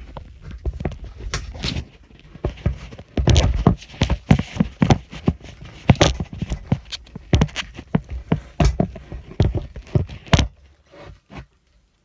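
Handling noise: a run of irregular knocks and clatter that stops about ten and a half seconds in.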